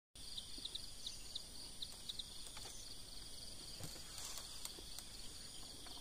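Outdoor dawn ambience of insects chirring steadily at a high pitch, with a run of short high chirps in the first two seconds and a faint low background hum.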